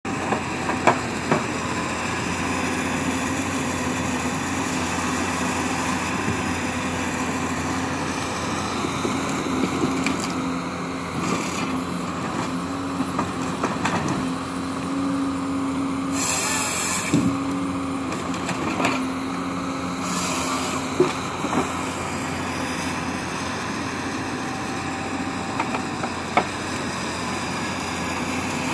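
Hyundai tracked excavator working a harvester head: the diesel engine runs steadily under hydraulic load, its pitch shifting a little as the head grips and feeds tree trunks. Scattered short knocks and cracks of wood come through, with two brief hissing bursts past the middle.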